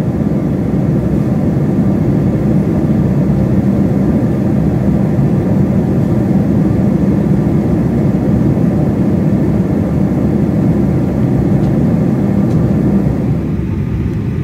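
Steady low-pitched rumble of a Boeing 767's engines and rushing air, heard inside the passenger cabin as the airliner descends on approach to land. It eases slightly near the end.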